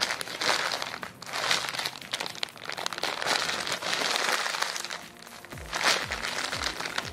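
Clear plastic packaging crinkling in bursts, about once a second, as a jumbo foam squishy is squeezed inside its sealed bag. Near the end background music comes in with falling bass notes and a slowly rising tone.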